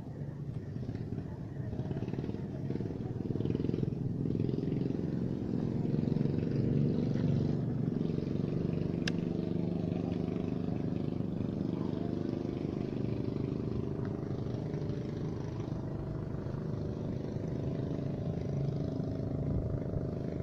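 An engine running steadily, growing louder over the first several seconds, with a single sharp click about nine seconds in.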